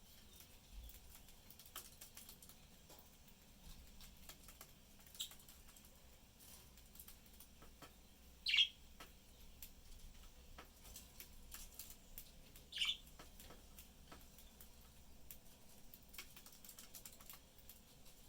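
Budgerigars cracking seed with their beaks, making many small scattered clicks, and chirping three times in short high chirps, the loudest about halfway through.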